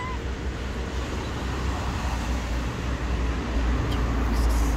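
Steady low rumble and hiss of outdoor background noise, swelling slightly near the end. The last of a cat's meow falls away at the very start.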